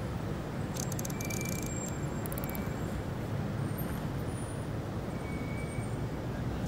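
Steady low outdoor background rumble, like distant road traffic, with no voices. A short run of faint, fast high clicks comes about a second in, and a briefer run comes around two and a half seconds.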